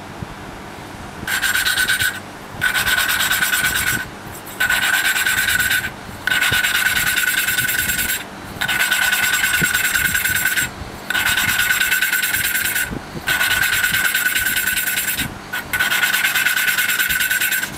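Valve being hand-lapped into its seat on a small air-cooled engine's cylinder head: a suction-cup lapping stick is spun back and forth between the palms, and the valve grinding compound gives a gritty rasping grind with a steady high whine on it. It comes in about eight bursts of one to two seconds each, with short pauses between.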